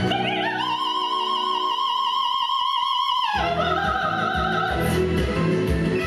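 Operetta soprano climbing onto a long, high held note with wide vibrato while the accompaniment drops away beneath it. About three seconds in the note breaks off, the accompaniment comes back in, and a shorter, higher sung phrase follows.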